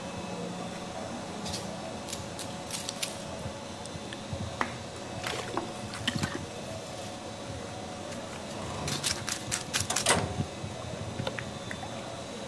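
Cooking sounds from a pan: scattered clicks and taps over a steady faint hiss, with a quick run of clicks about nine to ten seconds in.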